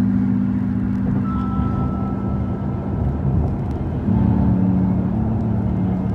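Car cabin road noise at highway speed, a steady low rumble, under background music of sustained low chords that change about four seconds in.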